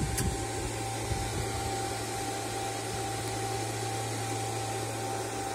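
Steady even noise from amateur radio station equipment, with a low hum and a faint constant high tone.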